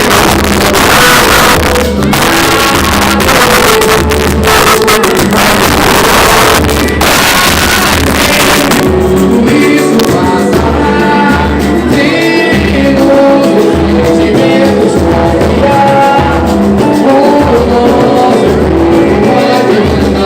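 Music with singing over a steady, regular low beat; a loud hissing wash over the top drops away about nine seconds in, leaving the melody clearer.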